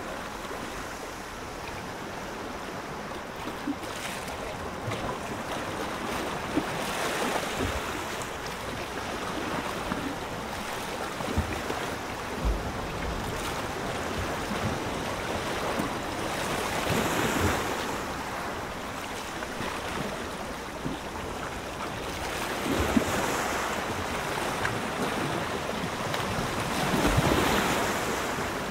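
Ocean surf: waves washing in and drawing back, swelling louder every few seconds.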